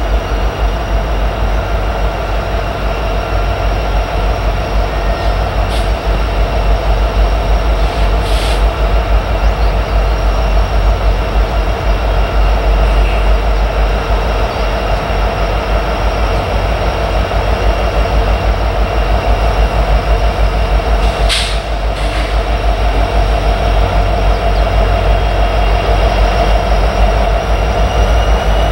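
Diesel freight locomotives working a train: a steady low engine rumble with a thin, steady whine over it. Two brief hisses, about eight seconds in and again about two-thirds of the way through.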